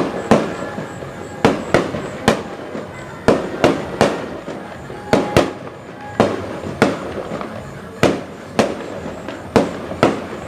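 Fireworks display: aerial shells going off in an irregular run of about fifteen sharp bangs, one or two a second.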